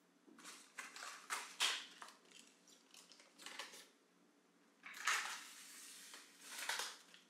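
Plastic food packaging and storage containers rustling and knocking as they are handled and set into a refrigerator, in several short bouts.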